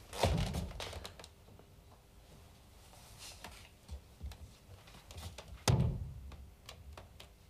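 An old wooden wardrobe being handled: two dull thumps in a small room, one just after the start and a louder one near the end, with faint light taps between them.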